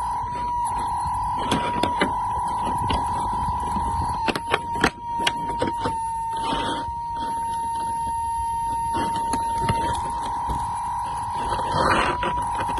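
A steady high-pitched whine holds throughout. Over it come sharp clicks and crinkles from handling a toy truck's clear plastic packaging and wire twist ties, most of them clustered about four to five seconds in.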